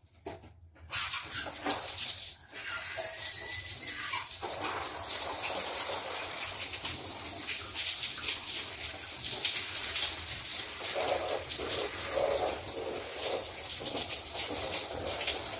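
Shower water running from a handheld shower head, coming on suddenly about a second in as a steady hiss and splashing onto hair and body.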